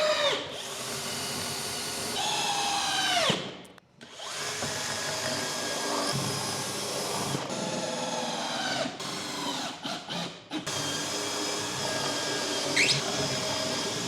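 Power drill driving long screws into a timber-faced SIPS panel, its motor whining and changing pitch as it runs under load, with short stops about four seconds in and a few more around ten seconds in.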